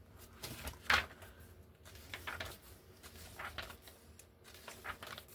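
Paper rustling as the pages of an auction catalog are turned, in short irregular rustles with a sharper one about a second in.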